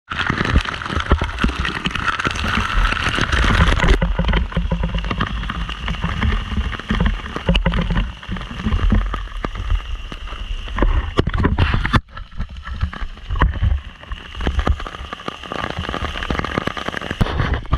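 Waterfall water rushing and splashing into its pool, a dense steady noise with a heavy low rumble. It changes abruptly about four and twelve seconds in.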